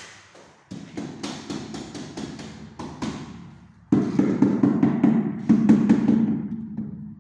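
Rubber mallet tapping a large porcelain wall tile into its adhesive bed: quick repeated dull knocks, several a second, bedding the tile flat. The knocks get louder and denser about four seconds in, over a steady low tone.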